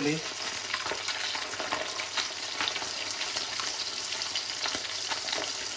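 Whole sea bass frying in hot oil in a pan: a steady sizzle with many small scattered crackles and pops as the fish crisps.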